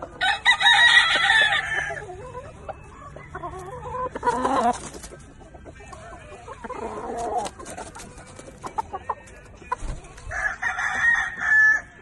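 Gamecock roosters crowing: a long, loud crow at the start, another about four seconds in, a weaker one near the middle, and a loud crow near the end.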